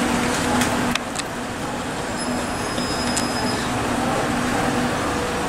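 Steady hum of a Southeastern Class 375 Electrostar electric multiple unit standing in the station, not yet departing. A low steady drone runs under a general noise haze, with two sharp clicks about a second in and a faint high whine in the middle.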